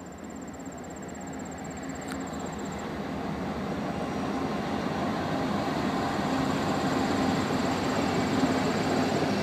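Norfolk Southern diesel locomotives hauling a coal train, approaching and passing. Their engine drone and the rolling noise grow steadily louder as they near.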